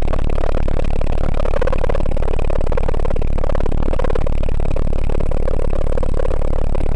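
Alouette II helicopter in flight: a steady loud run of turbine and rotor noise with a fast, even pulsing.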